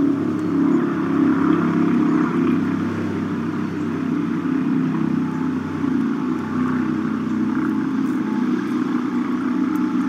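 Steady, loud drone of a large engine, a continuous low hum that neither rises nor falls.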